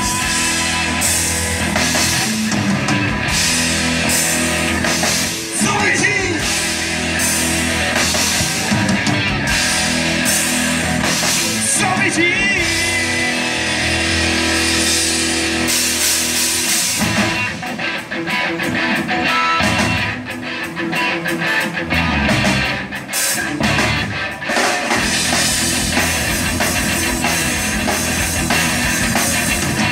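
Live rock band playing through a stage PA: distorted electric guitars, bass guitar and drum kit, with guitar licks over the driving drums.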